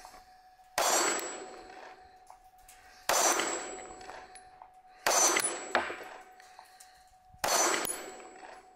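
Four pistol shots from a Sig P365 XL 9mm, fired slowly about two seconds apart, each crack fading over about a second.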